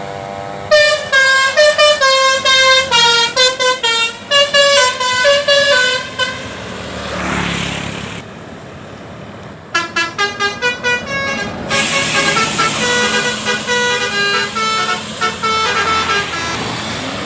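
Multi-tone musical bus horn (telolet type) playing a tune of short, stepped notes, then a quick run of notes and longer held tones. A brief rushing noise comes about seven seconds in.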